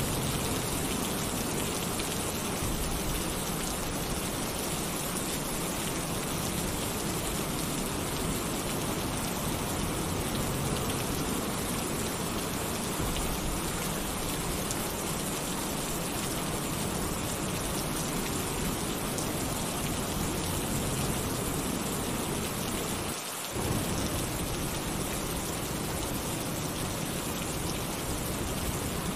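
Heavy rain drumming steadily on a tin roof, with thunder rumbling low underneath.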